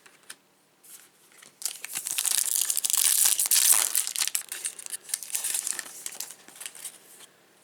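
Foil wrapper of a Topps Chrome baseball card pack being torn open and crinkled. It starts about a second and a half in, is loudest for a few seconds, then thins into scattered crackles.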